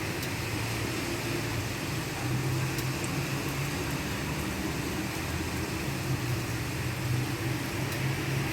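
Steady rain hiss with a low droning hum underneath that swells about two seconds in and again near the end, and a few faint ticks.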